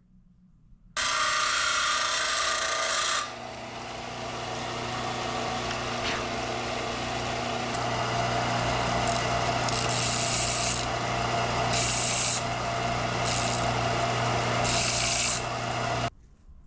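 Electric belt sander with a 40-grit belt switching on about a second in and running freely for a couple of seconds. A metal part is then pressed against the belt and ground down, with several harsher bursts of grinding, to shorten a part that is too long for its clip to fit. The sander switches off shortly before the end.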